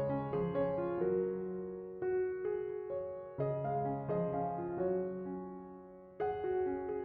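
Soft background piano music: gentle chords and a slow melody, each phrase struck and left to fade.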